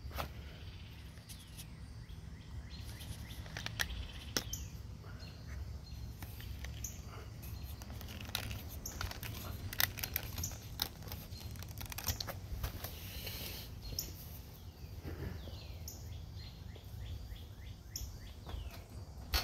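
Outdoor ambience: birds chirping and calling over a low steady rumble, with scattered small clicks and a rapid trill of falling notes near the end.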